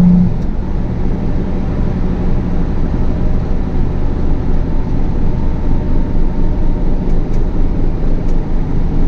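Tractor engine running steadily under way, a dense low rumble with a regular pulsing in its level.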